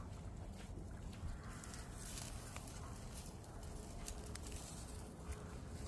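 Dorper sheep eating hay: scattered rustling and crunching clicks over a steady low rumble.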